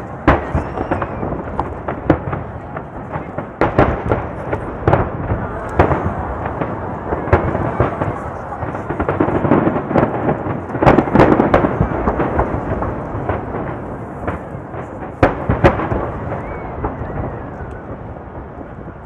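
Aerial fireworks shells bursting one after another: repeated sharp booms, each trailing off in an echo, over a steady crackle. The bursts come thickest about eleven seconds in.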